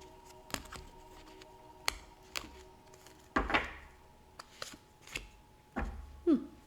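A deck of tarot cards being shuffled and handled: scattered sharp card clicks and short rustling riffles, the loudest about halfway through. A soft steady musical drone plays underneath, and a short falling tone sounds near the end.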